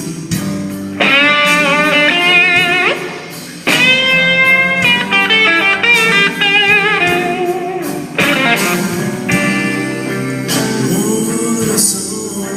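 Electric blues guitar lead over a backing band: long held notes bent upward and shaken with wide vibrato, one phrase entering about a second in and another near four seconds.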